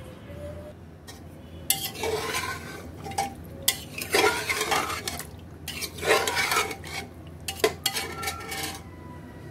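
A utensil stirring liver and potato curry in a metal pressure cooker pot: about four scraping strokes through the gravy, with a few sharp knocks against the pot.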